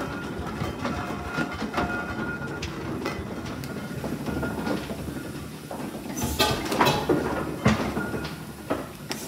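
Fowler steam roller's steam engine running with its flywheel turning, a fast rhythmic mechanical beat and clatter, with a few sharp metallic knocks from about six seconds in.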